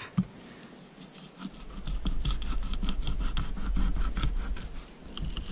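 Fillet knife cutting along a smallmouth bass's backbone: a run of short scratching, scraping clicks over a low rumble that starts about a second and a half in.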